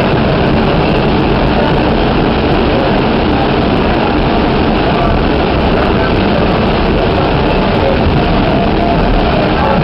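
Staten Island Railway train running at speed, heard from inside the car: the steady noise of wheels on the rails and the moving car.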